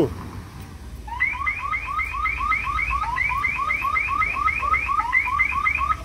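G4S cash van's panic alarm sounding: rapid rising electronic chirps, about four a second, starting about a second in and cutting off just before the end. The alarm was set off by accident, according to the driver.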